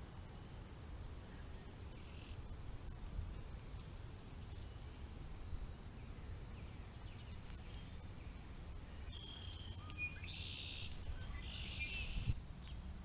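Birds calling and chirping over a steady low rumble, with a run of louder calls in the last few seconds.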